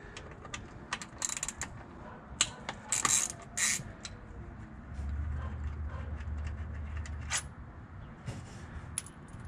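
Hand ratchet clicking in several short bursts as a socket backs bolts out of a TH400 automatic transmission's valve body, with scattered light metal clicks. A low rumble runs for about two seconds midway.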